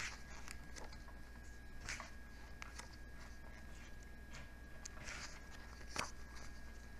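Pages of a large book being turned by hand: several short papery swishes and rustles, the loudest about six seconds in, over a faint steady high tone.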